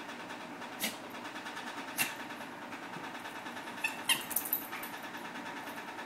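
Small dog playing with a yellow rubber chicken toy on an upholstered armchair: a few sharp knocks and short high squeaks of the toy, the loudest about four seconds in, over a steady low hiss.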